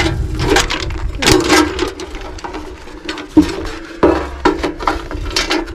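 A metal ammo-can geocache being handled: its lid and body clank and knock several times, with the loudest knocks about three and a half and four seconds in, while the papers and notebook inside are shuffled.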